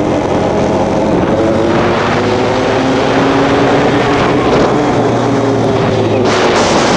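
Honda four-wheeler (ATV) engine running steadily under way, with wind rushing over the microphone near the end.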